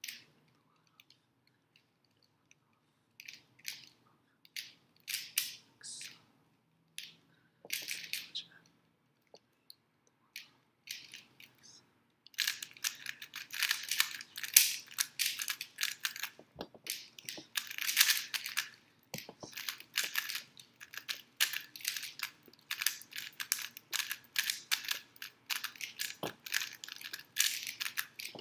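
Rubik's cube layers being turned by hand, clicking and clacking: scattered short bursts of turns for about the first twelve seconds, then fast, nearly continuous turning.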